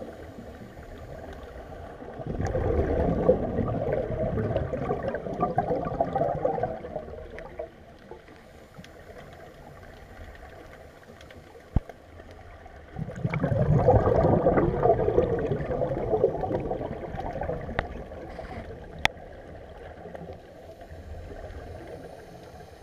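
Scuba divers' exhaled air bubbling out of their regulators, heard underwater: two long bursts of bubbling a few seconds in and again about halfway through, with a quieter hiss between them and a couple of sharp clicks.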